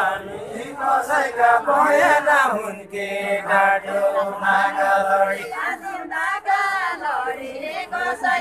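Unaccompanied voices singing a deuda, the chanted folk song of far-western Nepal, in a drawn-out melody with a long held note in the middle.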